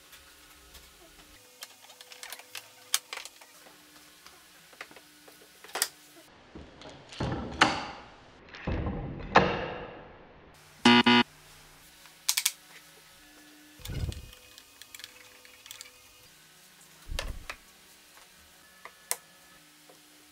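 Workshop handling sounds: scattered clicks and knocks of wood pieces and a screw clamp, with a few louder thumps. A little past the middle come two or three loud swishing sweeps and a brief ringing sound, over faint background music.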